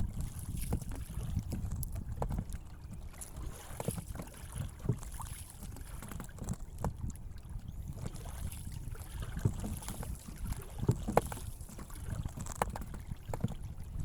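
Wind rumbling on the microphone, with scattered small clicks and knocks.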